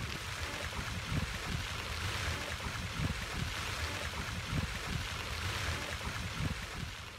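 Steady rush of water flowing over a low weir, with wind gusting in irregular low puffs on the microphone.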